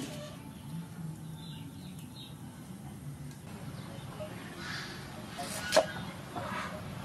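A cleaver chopping through a carrot onto a round wooden chopping block: one sharp chop about six seconds in.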